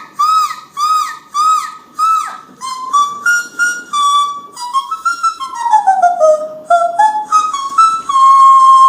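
A woman's voice in the whistle register: about five short whimpering arched squeaks like a puppy's whine, then a run of stepped high notes with a downward glide, ending on a long held note.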